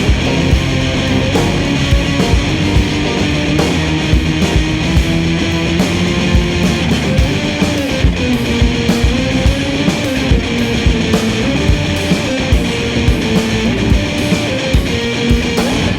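Instrumental band music: a drum kit keeping a steady beat under bass and guitar, with a held melody line that moves up and down.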